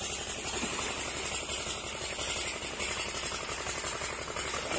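Road-repair machinery running with a rapid, steady rattling clatter.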